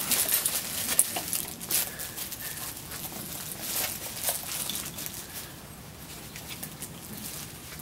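Cavalier King Charles Spaniel puppies scuffling and play-wrestling in their pen bedding: scattered scratchy rustles and patter of paws and bodies on the loose floor.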